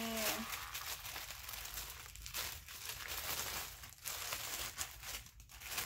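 Plastic mailer bag and bubble wrap crinkling and rustling in irregular bursts as hands pull the package open.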